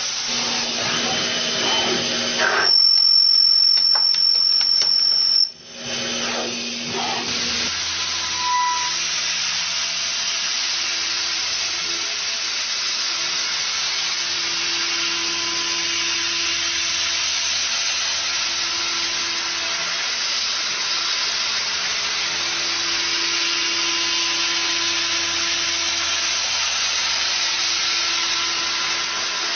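CNC machine running while cutting a gear: a steady loud hiss over a low machine hum. A high-pitched whine sounds for about three seconds near the start and cuts off suddenly, and a steady motor hum comes in soon after.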